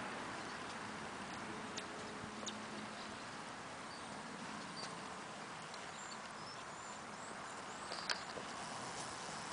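Outdoor ambience: a steady hiss with a few light clicks and ticks from footsteps and camera handling, the sharpest a little after eight seconds in, and a few faint high chirps.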